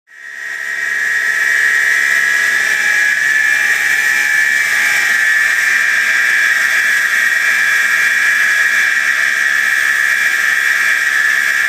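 Large electric pump motor running steadily with a loud high-pitched whine over a rushing hum. It fades in at the start.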